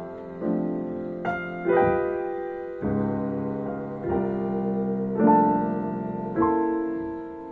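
Music played back through an Altec 816 loudspeaker cabinet with a 511B horn: slow keyboard chords, a new chord struck about every second and left to ring and fade.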